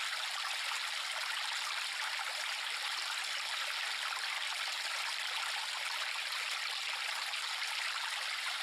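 A river running: a steady rush of flowing water with no distinct splashes.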